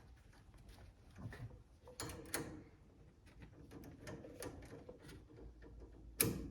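Faint metallic clicks and clinks of a wrench tightening the nut on a sway bar end link, with a sharper knock about two seconds in and another near the end.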